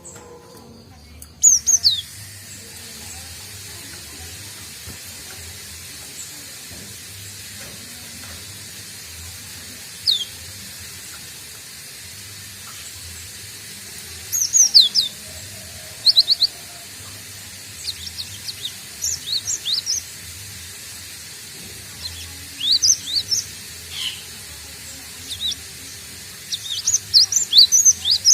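Cinereous tit (gelatik batu), a young bird still learning its song, giving short, high, downward-sweeping chirps. The chirps come in scattered groups of several quick notes, over a steady background hiss.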